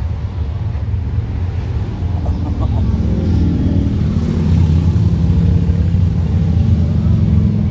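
Motorcycles passing by on the road, their engines rumbling deep and steady, growing louder to a peak about halfway through and staying loud.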